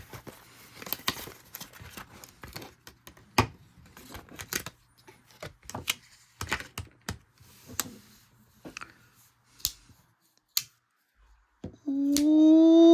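Retail packaging being opened and handled by hand: a run of irregular sharp clicks, snaps and crinkles, then it goes still about ten seconds in.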